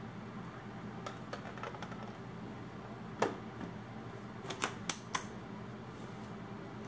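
Plastic push-button lid of a flour canister being fitted and pressed shut: one loud sharp click, then a quick run of three or four lighter clicks and taps as the canister is handled.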